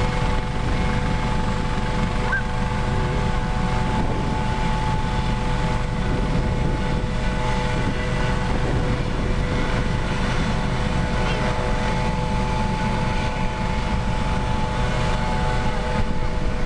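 Airbus Helicopters AS365 N3 Dauphin on a ground engine run after maintenance: its twin Turbomeca Arriel 2C turboshaft engines whine steadily over the rumble of the turning main rotor, the sound holding even throughout.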